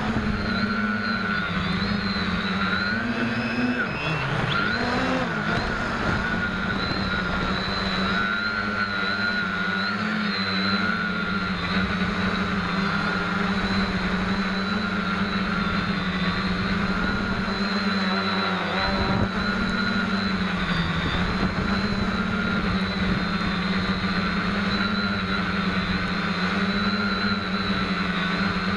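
SK450KK2 quadcopter's four motors and propellers buzzing in flight, heard close up from the camera on board. The pitch wavers up and down with throttle changes, with a brief dip about four seconds in.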